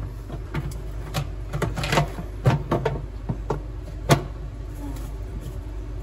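Plastic filter assembly of a Siemens dishwasher being pushed back into the sump and twisted to lock, making a string of irregular clicks and knocks with one sharper knock about four seconds in, over a low steady hum.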